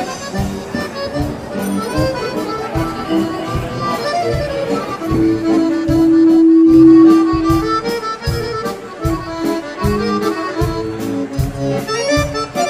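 Accordion music over a steady beat, with one long held note about five seconds in.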